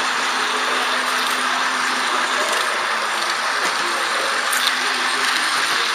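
Steady rolling noise of an H0 scale model train, heard from the camera riding on it, with a light click about four and a half seconds in.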